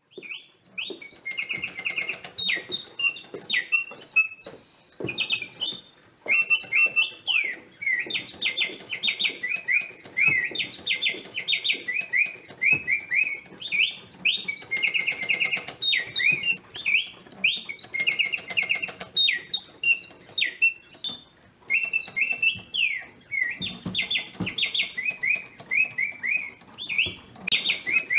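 Singing-bird automaton in a cage, attributed to Bontems, whose bellows-driven whistle plays an artificial birdsong of quick chirps, trills and rising and falling glides, in phrases broken by short pauses.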